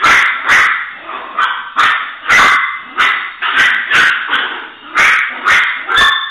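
A small dog barking in short, sharp barks, about two a second, that stop near the end.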